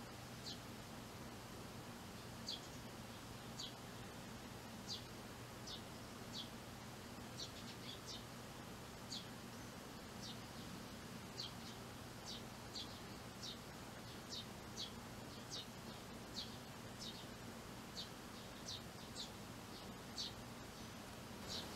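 Eurasian tree sparrow chirping: short, high, sharp chirps repeated irregularly, about one a second or a little faster, over a faint steady low hum.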